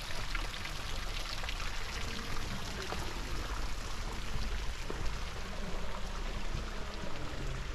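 Water splashing and running steadily, with many small droplet-like ticks.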